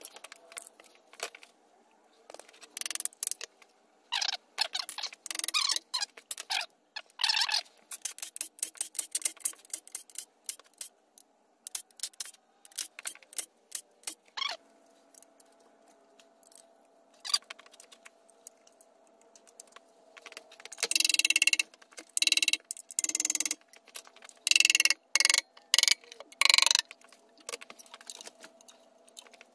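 Hand tools working the bolts and timing cover on a VQ35DE V6 engine. Bursts of rapid metallic clicking and clinking come in clusters, densest and loudest during the last third, over a faint steady hum.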